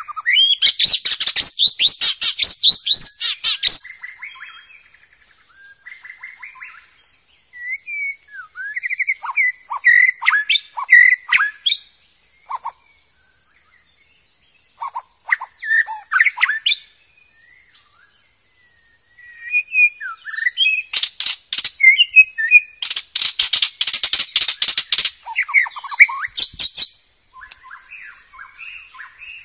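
White-rumped shama singing in loud, varied phrases of whistles and fast rattling trills, with short pauses between phrases. The loudest bursts come at the start and again about two-thirds of the way in. A faint steady high tone runs underneath throughout.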